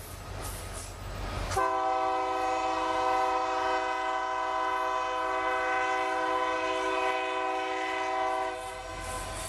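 Autorack freight cars rumbling past, then a diesel locomotive's multi-chime air horn sounds one long steady blast of about seven seconds, starting about a second and a half in and stopping near the end.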